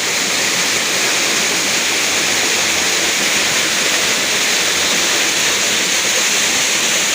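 Steady rush of flowing river water, an even unbroken hiss.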